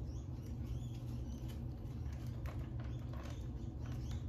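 Pet rats moving about in wood-shaving bedding: a few short rustles and scratches about two and a half to three seconds in, over a steady low hum.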